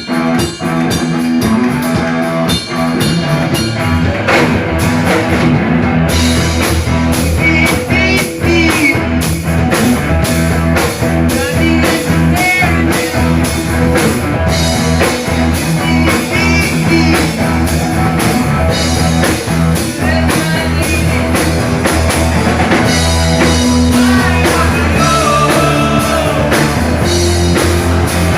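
Live rock band playing electric guitar, bass and drum kit. The guitar opens alone; the bass comes in about four seconds in, and the full drum kit with cymbals about six seconds in. Guitar string bends recur through the rest.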